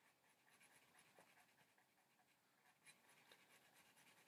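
Near silence with faint scratching and a few light ticks from a chalk pencil drawing on a painted surface.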